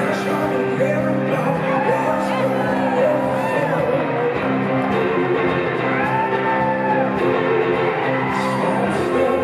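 Live blues-rock band playing at full volume: electric guitars and drums under sustained chords, with a male lead vocalist singing.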